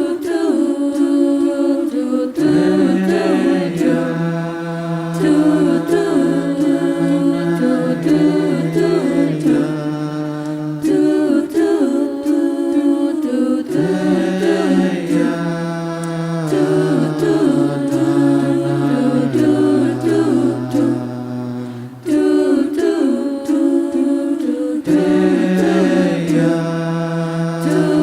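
A cappella vocal group singing in close harmony, unaccompanied: a low bass voice holds long notes beneath several moving upper voices. The low part comes in about two seconds in and pauses briefly a couple of times.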